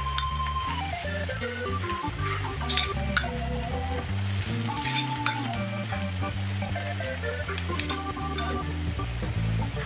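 Coconut-rice batter sizzling in the hollows of a hot kanom krok pan, under background music with a bass line and a simple melody.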